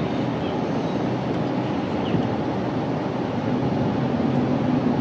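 Steady hum of a car idling, heard from inside the cabin, with the ventilation fan blowing.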